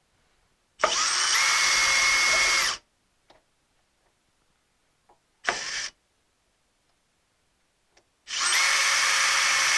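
Power drill boring a mounting hole, in three runs at steady speed with a steady high whine: about two seconds, a short blip midway, then a longer run starting near the end.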